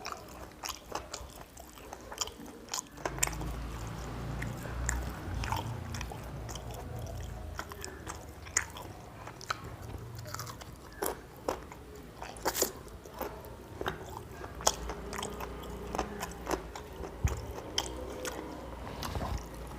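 Close-up eating sounds of a man chewing and biting into chicken curry with rice: wet chewing with many short, sharp clicks and crunches scattered throughout.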